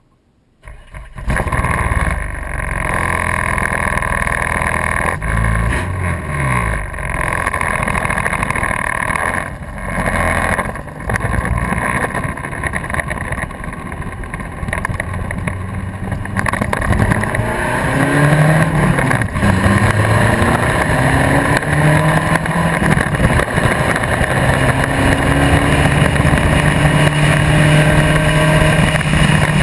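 Spec Racer Ford race car's four-cylinder engine running at speed on track, heard from the nose of the car with heavy wind noise. It comes in suddenly about a second in, and in the second half the engine note climbs in pitch over and over as the car accelerates.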